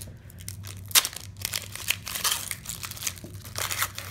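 Foil wrapper of a Panini Prestige football card pack being torn open and crinkled by hand, a dense rustle of crackles with one sharp crackle about a second in.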